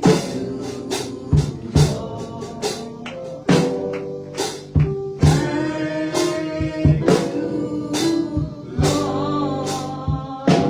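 Live gospel band music: sustained chords over drum kit hits, with sharp accented strikes several times a second.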